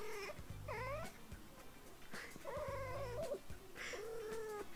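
Calico female cat in heat yowling: about four drawn-out calls that rise and fall in pitch.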